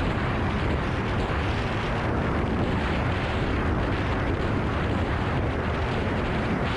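Snowmobile running along the trail: a steady, dense rush of engine drone and wind noise, with no change in pace.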